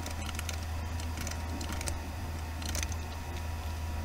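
Typing on a computer keyboard: irregular key clicks as numbers are entered, over a steady low hum.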